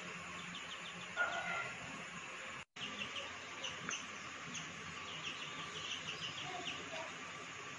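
House sparrows chirping, many short chirps over a steady background hiss; the sound cuts out for an instant a little under three seconds in.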